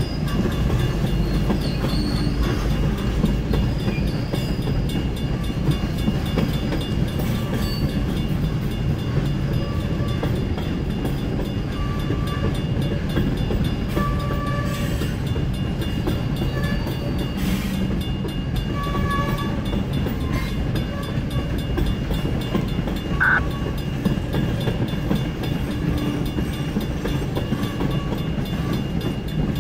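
Freight train of tank cars rolling past at a grade crossing: a steady rumble of steel wheels on rail with a clickety-clack of the trucks over the rail joints, and brief squeaks now and then.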